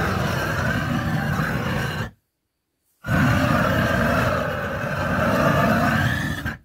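Blowtorch flame burning with a steady loud rush, scorching the inside of a wooden beehive to kill microbes, pests and moth larvae. The sound cuts out abruptly about two seconds in and starts again a second later.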